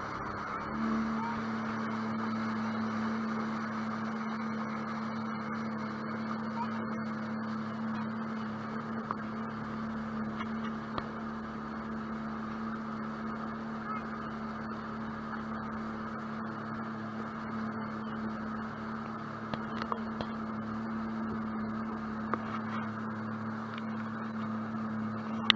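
Sea-Doo jet boat engine running under way at steady cruising speed, a droning tone that picks up slightly about a second in and then holds. Water rushing along the hull and wind run under it.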